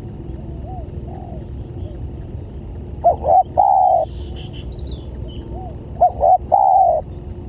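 Spotted dove cooing: two loud calls about three seconds apart, each a couple of short notes and then a longer drawn-out note. Fainter coos from a farther dove come in between.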